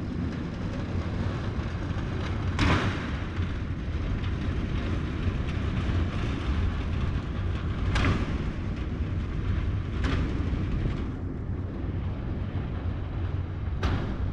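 Large sliding hangar doors rolling shut along their tracks: a steady low rumble, broken by several sharp metallic clanks.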